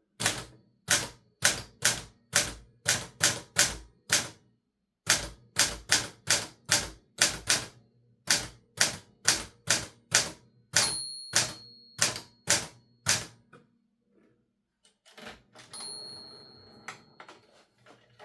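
Olivetti Linea 88 manual typewriter being typed on, with sharp keystrokes at about two a second. Its margin bell rings about eleven seconds in and again near the end, during a longer rattling stretch.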